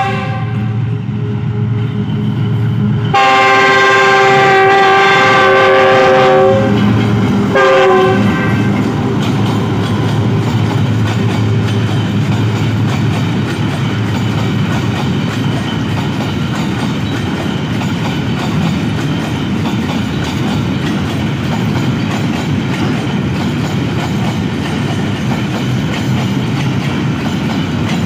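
A GEU-40 diesel locomotive sounds its horn in one long blast of about three seconds, then a short one a second later, over the low rumble of its engine as it passes. Then a long rake of empty open freight wagons rolls by with a steady noise of wheels on rail.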